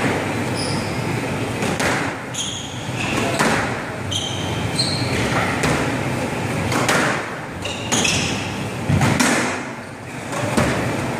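Squash rally: the ball cracking off rackets and the court walls at intervals of a second or so, with short high squeaks of court shoes on the wooden floor in between.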